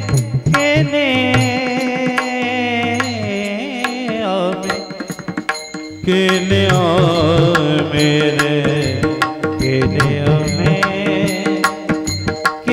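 Marathi devotional bhajan music: a wavering, ornamented melody over sustained accompaniment with regular drum strokes. It dips briefly about six seconds in, then comes back fuller.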